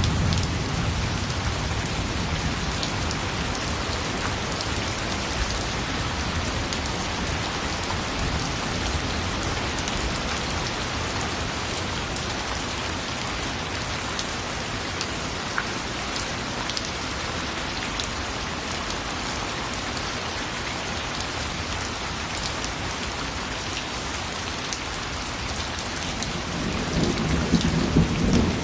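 Steady rain falling, with scattered drop ticks. A low rumble of thunder fades out in the first second, and another builds near the end.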